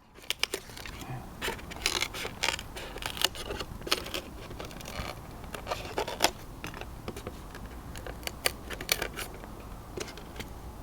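Polystyrene foam tray being cut and handled, giving irregular crisp creaks, scratches and clicks.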